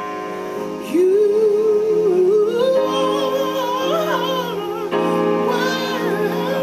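A woman singing gospel, holding a long, wavering note with heavy vibrato from about a second in, over sustained keyboard chords.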